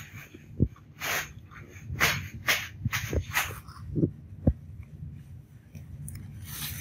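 Rustling of leaves and fruit being handled by hand while flowers are pushed into a fruit arrangement: several short rustles with a few soft low knocks between them.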